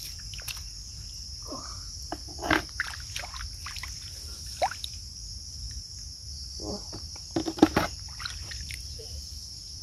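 Steady high-pitched insect chorus, with small splashes and trickles of water as hands move snails through shallow muddy water; a few sharper splashes come around the middle and near the end.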